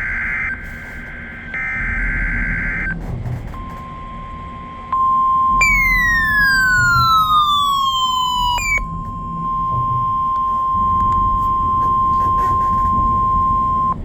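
NOAA Weather Radio test signals. In the first three seconds come the last warbling data bursts of the SAME digital header. Then the steady 1050 Hz warning alarm tone holds for about ten seconds. For about three seconds of it, starting around six seconds in, a second, louder tone slides downward over it, a fault in this botched test transmission, above a background of radio hiss and hum.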